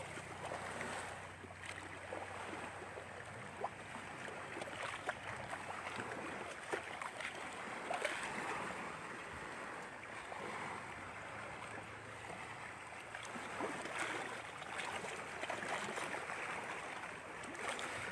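Outdoor water and wind noise: small waves lapping, with scattered faint knocks.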